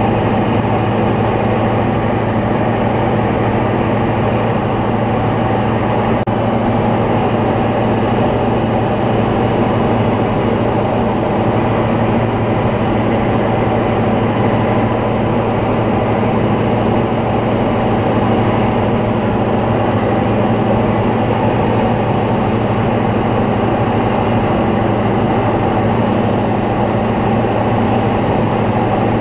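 Single-engine light aircraft's piston engine and propeller running steadily in flight, a constant drone heard from inside the cockpit.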